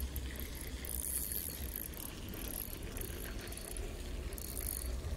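Ultralight spinning reel being cranked, its gears ticking in irregular runs that start and stop several times. A steady low rumble of wind on the microphone sits underneath.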